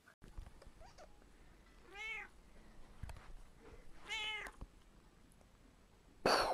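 A domestic cat meows twice, about two seconds apart, each meow rising and then falling in pitch. A short, loud burst of noise comes near the end.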